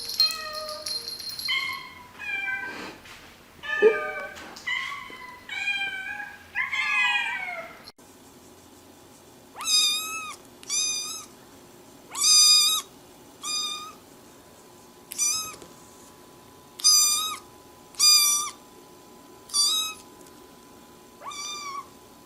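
Cats meowing: a run of varied meows for about eight seconds, then after a sudden cut one cat meowing over and over, about nine short calls of much the same shape, one every second or two.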